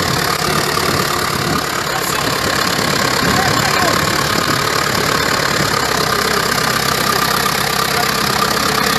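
A crawler tractor's diesel engine running steadily while the tractor sits stuck in broken river ice, putting black smoke out of its exhaust stack.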